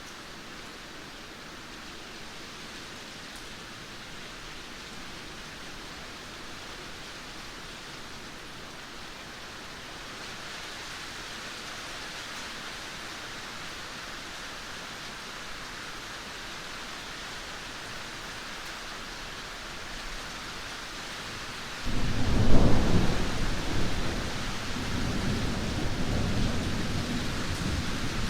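Heavy rain falling steadily, then a sudden loud clap of thunder near the end that breaks into a long, low rumble.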